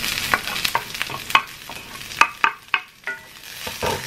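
Onions and freshly added minced garlic sizzling in hot oil in a skillet, with a series of sharp knocks and scrapes as the garlic is pushed off a wooden cutting board and a wooden spatula stirs against the pan.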